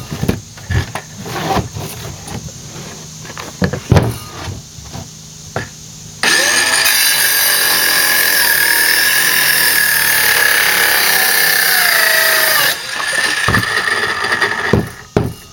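Cordless DeWalt circular saw cutting through 3/4-inch plywood: the saw starts suddenly about six seconds in and runs loud and steady for about six seconds, its whine sagging in pitch through the cut on a nearly flat battery. Before and after the cut, knocks and clatter of the board and saw being handled on a wooden bench.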